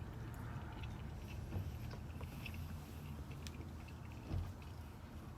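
Chewing on chicken kebabs, with small clicks of handling the food over a steady low rumble and a soft thump about four seconds in.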